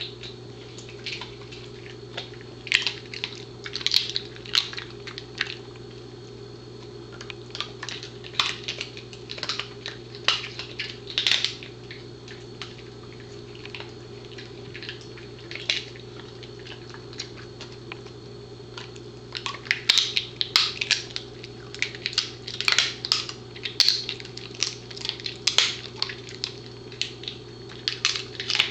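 Pembroke Welsh Corgi chewing a crunchy dried buffalo trachea strip: irregular runs of crisp cracking crunches. There is a quieter lull in the middle and dense crunching in the second half, over a steady low hum.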